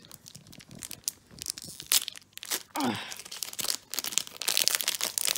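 Foil wrapper of a trading-card pack being torn open and crinkled by hand: a run of irregular sharp crackles that gets busier near the end.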